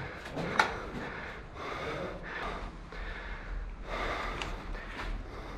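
A person breathing close to the microphone, a noisy breath roughly every second, with one small click about half a second in.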